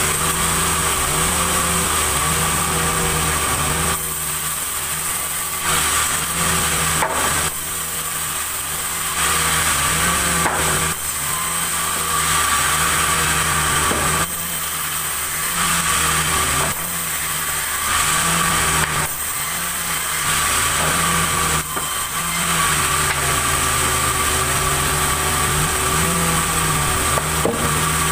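Sawmill machinery running and cutting a large log, with a steady high saw whine. The engine note sags and recovers about every two seconds, with stretches of rougher cutting noise in between.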